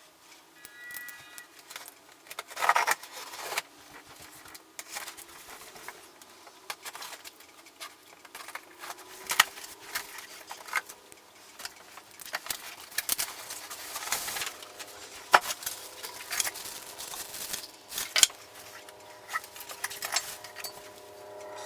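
Irregular clicks, knocks and rattles of things being handled, with the sharpest knocks about two and a half and fifteen seconds in.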